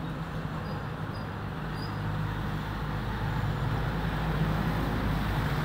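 Steady low engine rumble that grows somewhat louder about two seconds in.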